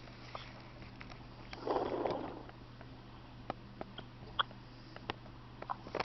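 Hiccups recorded on a phone: short sharp hics, the clearest about four and a half seconds in, with smaller clicks between them and a soft rushing noise about two seconds in, over a steady low hum.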